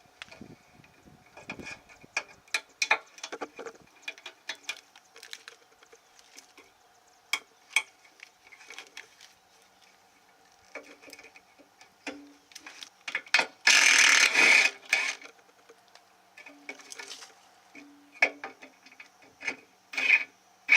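Hand work pulling a truck's wiring harness free: scattered clicks, rattles and knocks of wires, clips and loom being handled, with a louder scraping rustle lasting about a second and a half, a little past the middle.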